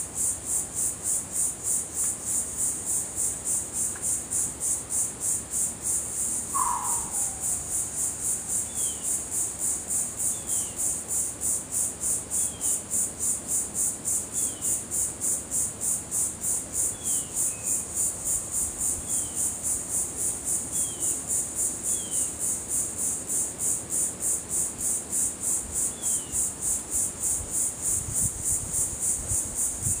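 Insects singing: a loud, high-pitched buzz pulsing in a steady, rapid rhythm throughout. Faint short downward chirps sound every second or two over it, with one lower, longer downward call about six seconds in. A low rumble of wind on the microphone comes in near the end.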